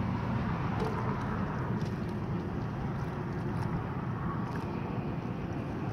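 Steady outdoor noise with a low rumble, as of traffic and wind at a bridge, with a few faint clicks.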